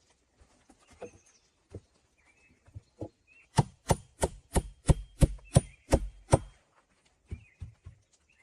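A tool striking wood: a few scattered knocks, then a run of about nine sharp, quick blows at roughly three a second in the middle, then a few lighter knocks near the end.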